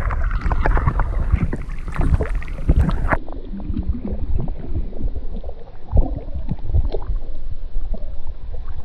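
Creek water splashing and sloshing with rumbling on the microphone and scattered knocks, as a hooked smallmouth bass is fought and brought in. The sound turns duller about three seconds in.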